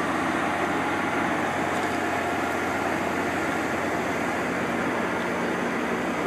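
EMD F40PH diesel locomotive's two-stroke engine running steadily while the locomotive stands, a constant low hum with a dense mechanical rumble over it.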